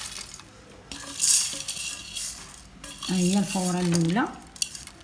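A utensil stirring and scraping through oiled fenugreek seeds in a pot, a rustling scrape with a few sharp clinks near the end. A voice is heard briefly in the middle.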